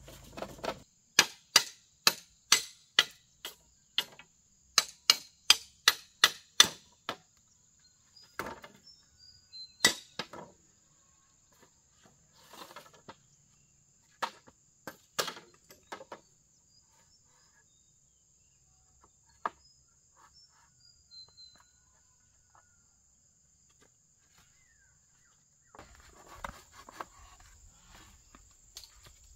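Two quick runs of sharp knocks, about three a second, like chopping or hammering, then a few scattered knocks and rustling near the end. A faint steady high insect-like tone runs throughout.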